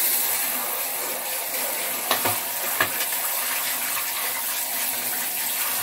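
Handheld shower head spraying hot water into a plastic plant-pot saucer and onto a tiled floor: a steady hiss and splash, with a couple of light knocks about two seconds in.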